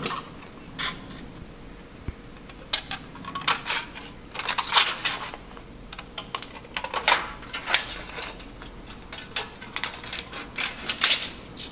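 Scissors snipping through thin aluminum sheet cut from a soda can: a run of crisp, irregular snips in short clusters with pauses between cuts.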